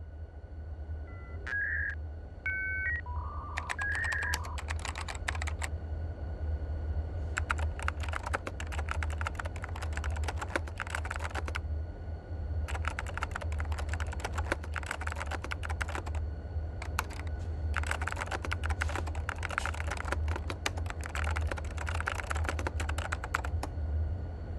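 Rapid typing on a keyboard, a dense clatter of key clicks in four runs of a few seconds each, over a steady low hum. A few short electronic beeps at different pitches come just before the typing starts.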